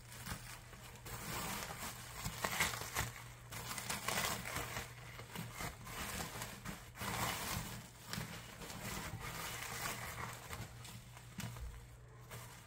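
Bubble wrap crinkling and rustling as it is handled and pulled open around a boxed album, in irregular crackly bursts that ease off near the end.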